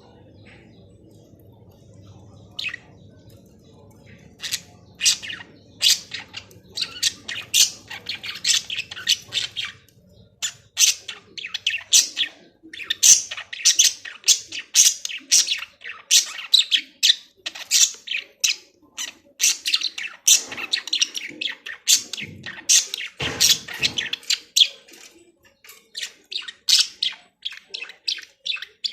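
Budgerigars chirping and squawking in quick, sharp, high calls. They start a few seconds in, come thick and fast, and pause briefly near the end.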